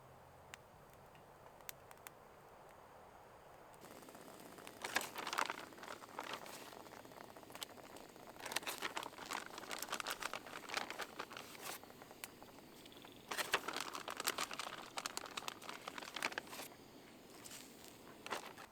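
Crinkly rustling and crackling in three bursts of a few seconds each, over a steady soft hiss.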